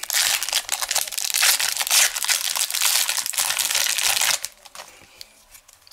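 Foil wrapper of a retail football card pack being torn open and crinkled, a dense crackling that stops about four seconds in.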